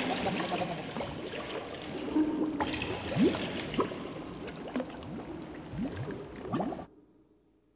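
Bubbling, gurgling liquid sound effect, with many short rising bubble plops over a dense wash. It cuts off suddenly near the end, leaving only a faint hum.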